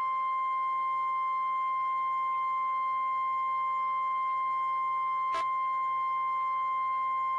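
National Weather Service 1050 Hz warning alarm tone: one steady, unwavering pitch, sounded as a test of weather-radio alert receivers. A short click about five seconds in.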